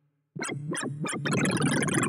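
Sorting-algorithm visualizer's synthesized bleeps, their pitch following the values of the array elements being accessed. After a brief silent gap, a few quick rising-and-falling pitch sweeps play, then from about a second in a dense rapid stream of short tones jumps all over the pitch range as the sort works through the array.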